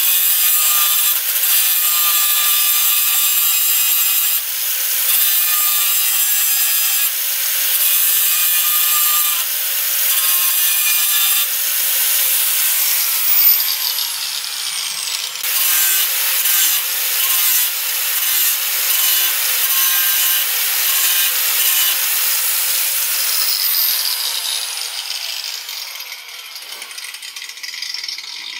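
Angle grinder with a thin cut-off wheel cutting through spot and tack welds in the sheet-steel radiator support, a loud harsh grinding with a high whine. Twice the whine falls in pitch, and the grinding tapers off near the end.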